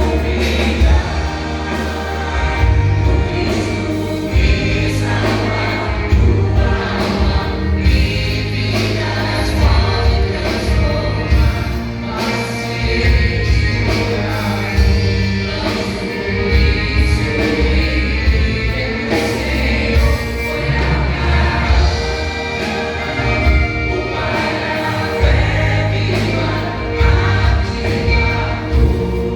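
A vocal group singing a gospel song in harmony over a band with a strong, steady bass beat.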